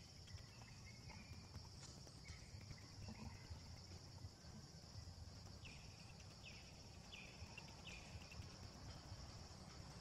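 Faint outdoor forest ambience: a steady, high insect drone, with a run of about five short falling chirps from about six to eight seconds in.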